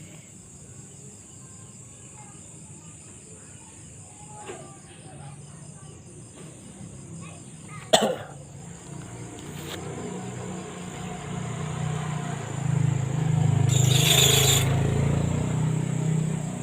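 Crickets and other insects chirping steadily, with a sharp click about halfway through. From about ten seconds in, a passing motor vehicle's engine grows louder, loudest near the end.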